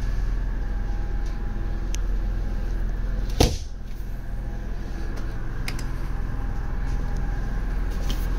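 Steady low rumble, with one sharp clack about three and a half seconds in as the motorhome's framed shower door is shut.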